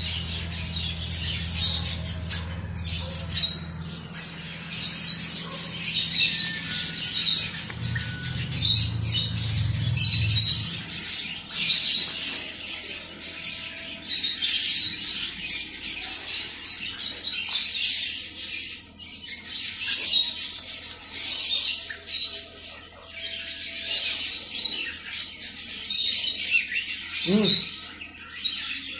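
Young ducklings peeping, repeated high-pitched calls in short bursts. A low hum underneath stops about eleven seconds in.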